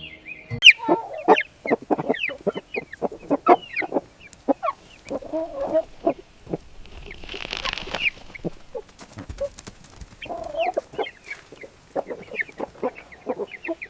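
Chickens clucking: a string of short clucks, with a brief rustle about halfway through.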